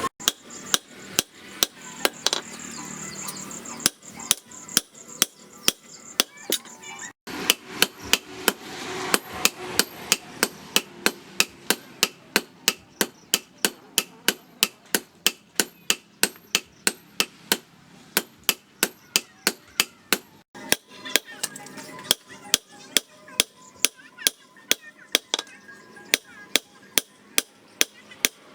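Hand hammer striking steel on an anvil, forging a knife blank: a steady run of ringing metal blows at about two to three a second, broken briefly twice.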